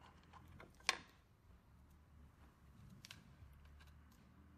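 Faint handling clicks and taps over a low hum as a sensor wire and its small plastic connector are handled against a metal frame, with one sharp click about a second in and a few more clicks about three seconds in.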